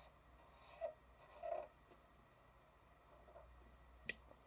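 Faint felt-tip marker strokes on paper, two short strokes in the first second and a half, then near silence and a single sharp click near the end.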